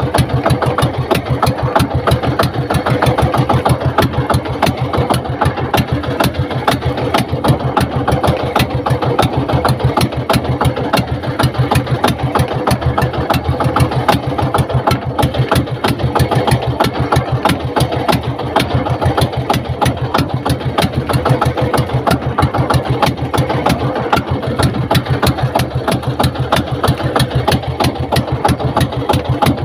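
Small fishing boat's engine running steadily at constant speed, with a rapid, even firing beat.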